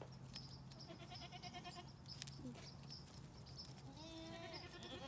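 Goats bleating faintly: a short call about a second in and a longer one near the end, over a low steady hum.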